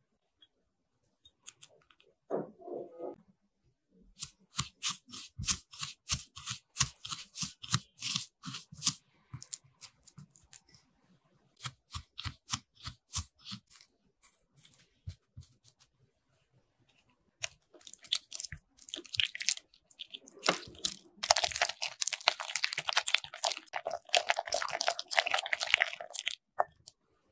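Food preparation sounds: a long run of sharp clicks and crunches, then several seconds of continuous dense crunching near the end.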